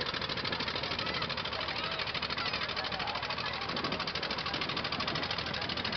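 Engine of a wooden passenger river boat running with a steady, rapid chugging.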